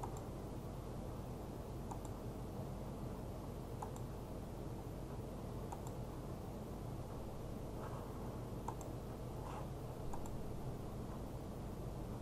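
Faint computer mouse clicks, roughly one every two seconds, as the spin button is pressed again and again, over a steady low hum.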